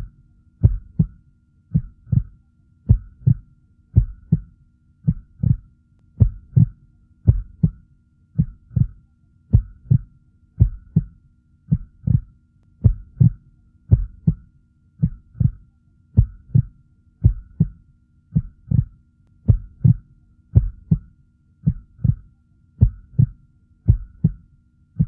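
Heartbeat sound effect: a steady 'lub-dub' rhythm of paired low thumps, about one double beat a second, with a faint steady hum beneath.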